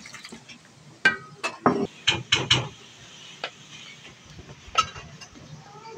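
Hands mixing flour and water into dough in a stainless steel bowl, with a quick run of about six sharp knocks and clinks against the bowl a second or so in, some briefly ringing, and one more near the end.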